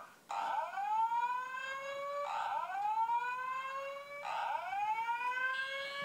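Simplex fire alarm sounding the 4100U/ES whoop tone through a TrueAlert notification appliance: a rising sweep that starts over about every two seconds, three times.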